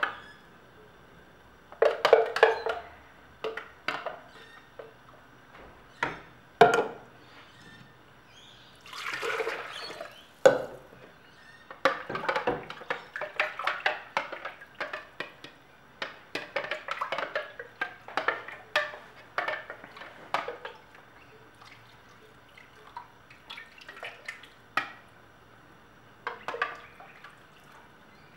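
Thick curry paste being scraped and tipped out of a blender jar into a pot of chicken: an irregular run of knocks and scrapes against the jar, with wet plops of sauce. There is a short rush of noise about nine seconds in.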